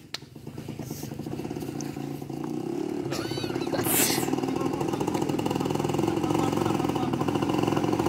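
Motorcycle engine running and drawing nearer, growing steadily louder.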